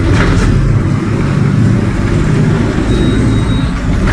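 Mercedes-Benz OF-1722M bus under way, a steady low drone of engine and drivetrain, including the growling differential.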